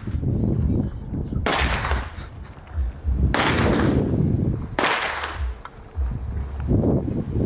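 Three gunshots from an AR-style firearm, about one and a half seconds apart, each dying away in a short echo. A steady low rumble runs underneath.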